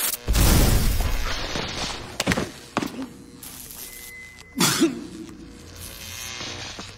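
Fight sound effects: a loud crash with shattering debris as a body is slammed into a wall, then a couple of sharp knocks and another hard hit a little past halfway.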